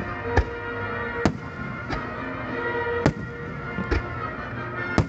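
Starmine fireworks display: sharp bangs of bursting shells, about six at uneven intervals, with music playing underneath.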